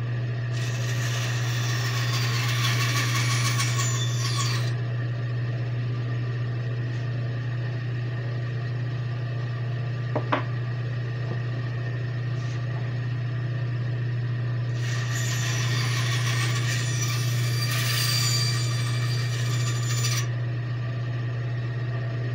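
Bandsaw blade cutting through wood in two passes, one of about four seconds near the start and one of about five seconds starting about fifteen seconds in, over a steady motor hum. One sharp click about ten seconds in.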